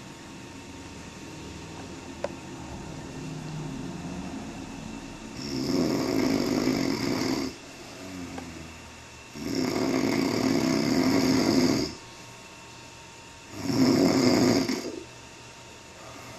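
A man snoring heavily while asleep: three long, loud snores about four seconds apart, each lasting around two seconds, with quieter breathing in between.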